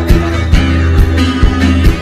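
Live instrumental music: a didgeridoo drone sits under plucked guitar notes, with a kick drum beating about twice a second.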